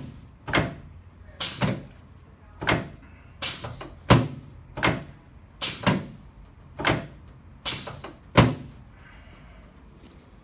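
Chiropractic table knocking under a rapid series of thrusts to the sacrum and lower lumbar spine: about a dozen sharp thuds, roughly one every 0.7 s, that stop near the end.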